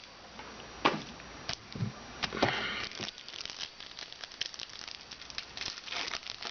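Crinkling plastic wrapper of a trading card pack being handled and opened: irregular crinkles and snaps, with a longer rustle about two and a half seconds in.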